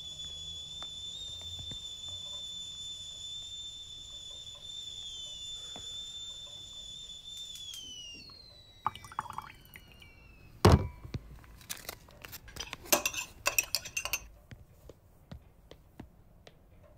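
Stovetop kettle whistling with a steady high tone; about eight seconds in, the whistle slides down in pitch and fades out. A loud knock follows, then a quick run of dish clinks.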